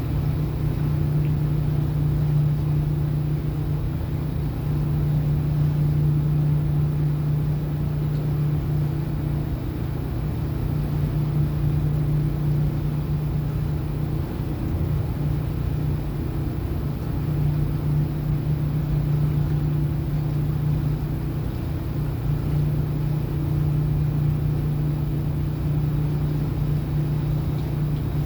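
Steady low drone of a ship's engines and machinery, heard on board the vessel under way, with an unbroken hum and a rumble beneath it.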